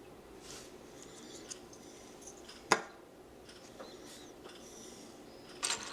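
Small plastic Lego pieces being handled on a table: faint rustling, one sharp plastic click a little under three seconds in, and a few more clicks near the end.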